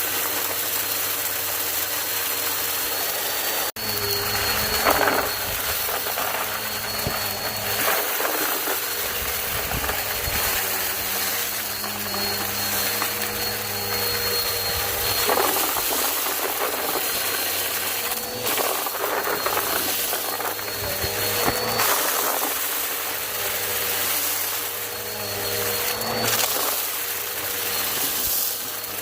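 Vacuum cleaner running steadily with a high-pitched motor whine, broken by a momentary dropout about four seconds in and by short surges of rushing noise every few seconds.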